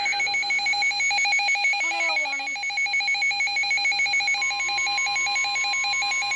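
Weather radio emergency alert tones: a rapid, evenly repeating electronic beeping alarm, joined about four seconds in by a steady single tone, the NOAA Weather Radio 1050 Hz warning tone. Together they signal an incoming tornado warning.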